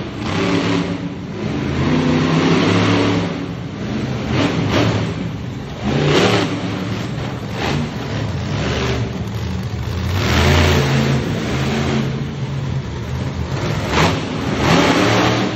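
Monster truck engine revving hard in repeated bursts, its pitch rising and falling as the throttle is worked, with several loud surges.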